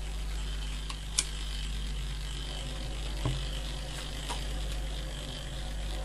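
Washing-machine timer running on mains power fed directly to its motor: the small timer motor hums steadily, with a few sharp clicks (the loudest about a second in) as the cam-driven contacts switch. The motor turning under direct power shows that it works.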